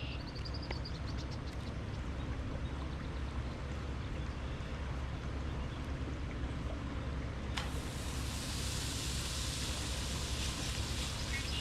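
Riverside ambience: a steady low rumble with a few short high bird chirps in the first second. About eight seconds in, a steady high hiss starts suddenly after a click.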